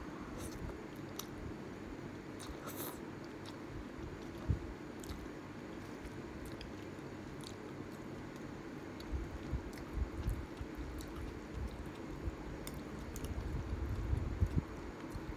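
Close-miked chewing of spicy instant ramen noodles, with many small wet mouth clicks over a steady low hum.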